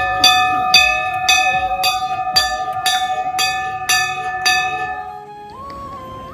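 Hanging temple bell rung by hand, struck about twice a second for some four and a half seconds and then left to ring out. Near the end, a melody of held notes begins.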